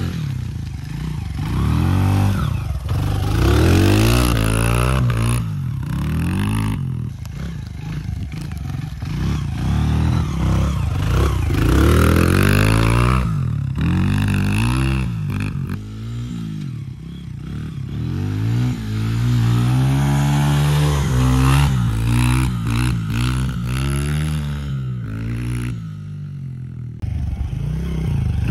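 Small dirt bike engine revving up and down again and again as it is ridden through mud, its pitch rising and falling with each twist of the throttle.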